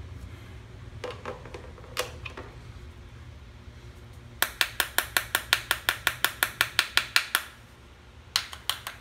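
A ratchet wrench clicking: an even run of about twenty clicks, roughly seven a second, starting about four and a half seconds in, then a few more clicks near the end, as the bottom bolt of a Briggs & Stratton carburetor is worked loose. A few light metal clicks come earlier.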